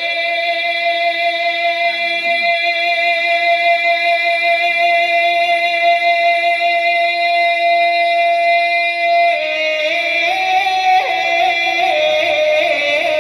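Naat recitation: a single voice sings one long held note for about nine seconds, then moves through a few shorter notes at a different pitch.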